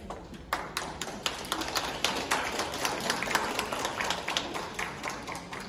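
Scattered applause from a small seated audience: irregular hand claps start about half a second in and thin out near the end.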